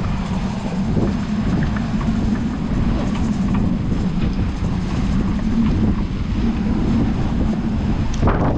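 An engine running steadily with an even low drone.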